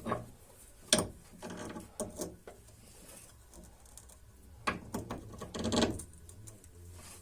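Hand work on a car's front suspension: scattered metallic clicks, knocks and scraping of tools and parts as a new anti-roll bar link is fitted, with a sharp click about a second in and a longer rattling scrape near the end.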